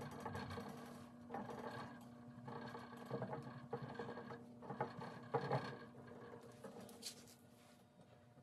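A cloth rag dabbing and rubbing along a wire lampshade frame, stippling and blotting on a patina finish: soft, irregular rubs and dabs over a steady low hum.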